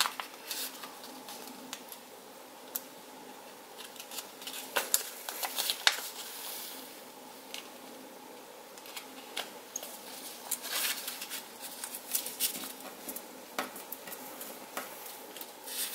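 A sheet of A5 paper being folded and creased by hand: scattered crisp paper rustles, crinkles and small taps, busiest around five to six seconds in and again in the last third, over a faint steady hum.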